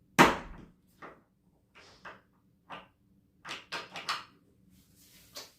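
A sharp knock just after the start, then a string of lighter clicks and taps: small metal and plastic toilet-mounting hardware being handled and fitted at the floor flange.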